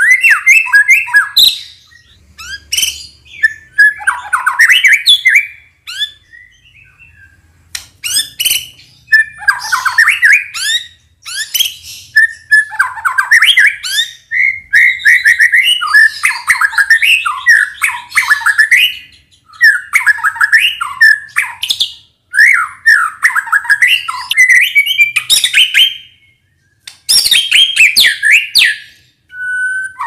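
White-rumped shama (murai batu) singing loud, varied phrases of whistles and rapid chattering notes, packed with mimicked calls. The phrases come in bursts of a second or two with short pauses between them.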